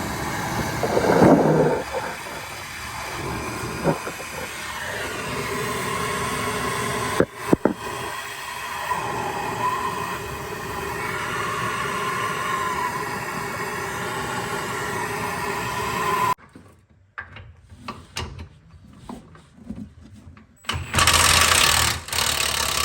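Impact wrench running for a long stretch on the lower control arm bolt, which will not back all the way out. It stops suddenly about two-thirds of the way through, gives a few tool clicks, then runs again in a short burst near the end.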